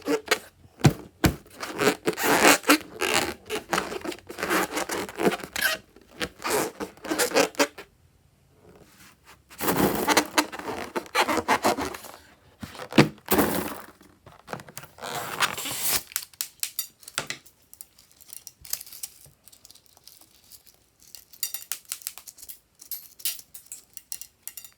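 Slime and balloons being handled: scraping, tearing and sticky crackling sounds in close, busy stretches, with a short lull about eight seconds in and only faint crackles in the last third.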